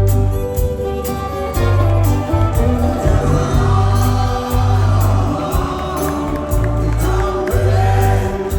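Live band playing a country-rock song with singing, over a steady drum beat and heavy bass.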